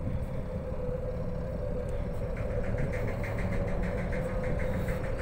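Steady drone of a large ship's machinery while under way at sea: a low rumble with a constant hum. About two seconds in, a fast, even ticking joins it.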